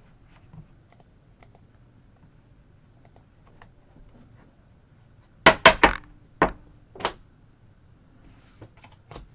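Hard objects knocking on a tabletop as cards and boxes are handled: faint small clicks, then a quick run of five sharp clacks a little past halfway.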